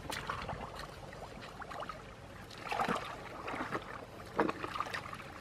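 Gloved hands groping and digging through wet mud and shallow water, with irregular squelches and splashes; the loudest come about three seconds in and again a little after four seconds.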